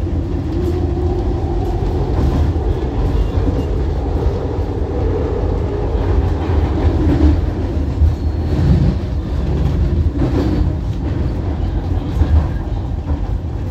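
Market-Frankford Line elevated train running along the track, heard from inside the car: a steady rumble of wheels on rail with clicks over the joints and switches.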